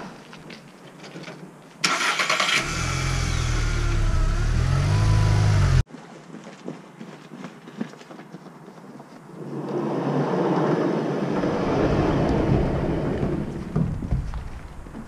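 A vehicle engine starts and runs for about four seconds, then cuts off abruptly. A second engine-like rumble swells up several seconds later, runs a few seconds and fades.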